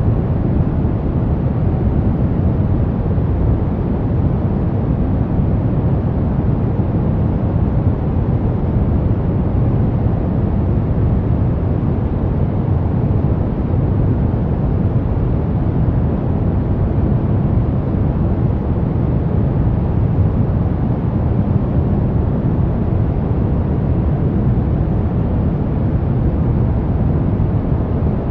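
Brown noise: a steady, deep rumbling hiss, loudest in the low end and dull above, unchanging throughout.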